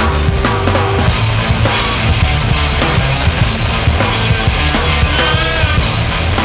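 Loud rock music soundtrack, punk-style, with a steady drum beat.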